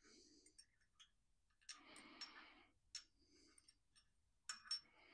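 Near silence with a few faint clicks and short soft rustles, with a couple of sharper clicks near the end: small metal engine parts, push rods and rocker arms, being handled and fitted to the cylinder heads.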